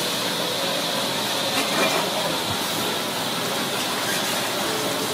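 Steady hissing kitchen background noise, with a few faint taps of a knife meeting the cutting board as a raw spoon worm is sliced.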